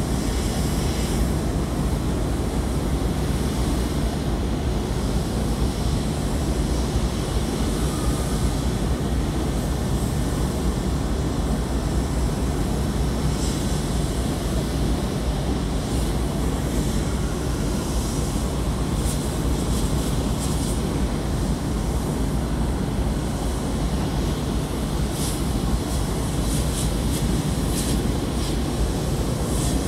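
Steady low drone of a large car carrier ship's engine running as the ship passes close, with a hiss over it and a few brief crackles in the upper range.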